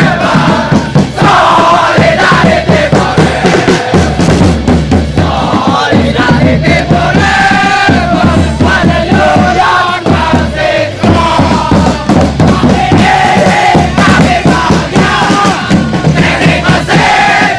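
Loud music with a steady bass-drum beat and a group of voices chanting together.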